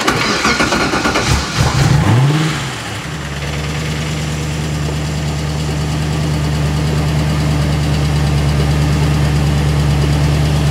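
Audi 4.2 V8 engine in a Porsche 986 Boxster starting up: it fires, revs up and back down briefly about two seconds in, then settles into a steady idle.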